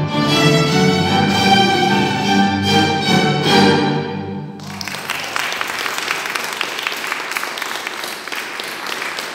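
Small string ensemble of violins and cellos playing the closing bars of a piece, stopping on a final chord about four and a half seconds in. Audience applause follows to the end.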